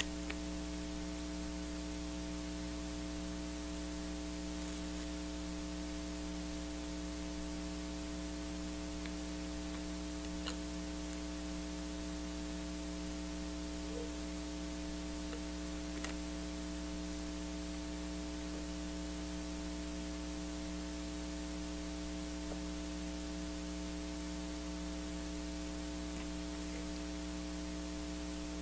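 Steady electrical mains hum with constant hiss, and a few faint clicks scattered through.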